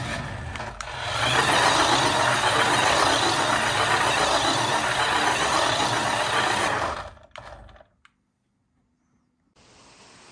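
Paw Patrol Chase remote-control police cruiser's small electric motor and gearbox whirring as it drives across a tabletop. The sound is uneven for about the first second, then runs steadily for about six seconds and cuts off.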